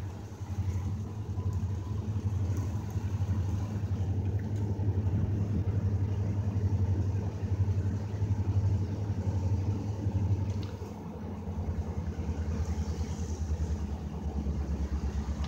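Diesel locomotive engine running with a steady low drone as the freight train moves back up the line; about eleven seconds in the drone drops lower and pulses.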